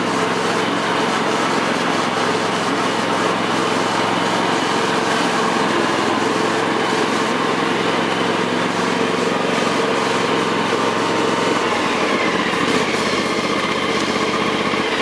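The 22 hp Kawasaki two-cylinder engine of a 2009 John Deere X320 lawn tractor runs steadily as the tractor drives across the grass, its pitch dipping slightly about twelve seconds in. The engine is brand new, with less than an hour on it, and is being run in.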